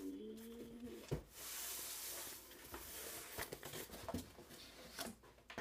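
Cardboard shipping box being handled: a brief squeak of cardboard rubbing at the start, a sharp knock about a second in, a couple of seconds of scraping and rustling, then scattered knocks and taps.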